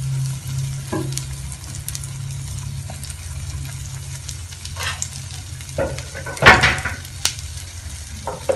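Egg omelette sizzling as it fries in oil in a nonstick pan, over a steady low hum. A brief clatter about six and a half seconds in is the loudest sound.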